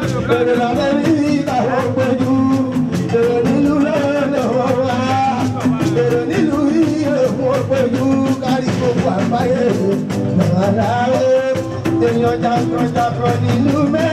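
Live Fuji music: a male lead singer sings into a microphone over a band with quick, steady percussion.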